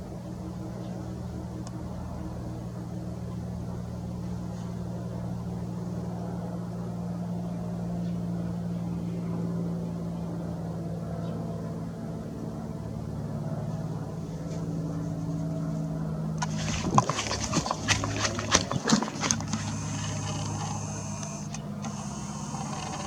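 Single-engine piston aircraft drone from a Cessna 172F Skyhawk on approach, its six-cylinder Continental O-300 and propeller making a steady low hum that shifts slightly in pitch. About seventeen seconds in, a cluster of sharp clicks is followed by a few seconds of high hiss.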